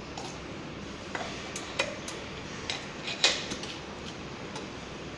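Light clicks and knocks of metal and plastic parts as a roll of packaging film is fitted on its metal shaft and the shaft's locking collar is slid on and its knob tightened: several scattered taps, the loudest about three seconds in.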